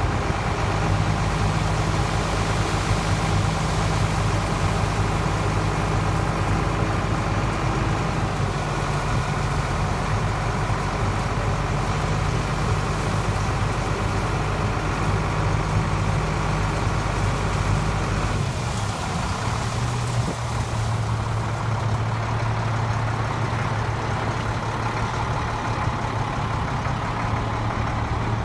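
International DT inline-six diesel engine of a straight truck running steadily while its hydraulic hoist raises the steel grain box. The engine note changes about eighteen seconds in, when the deepest rumble drops away.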